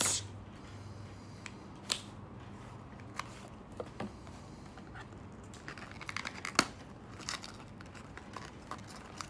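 Small cardboard product box being handled and opened: scattered clicks, scrapes and paper rustles, with a sharp snap about six and a half seconds in.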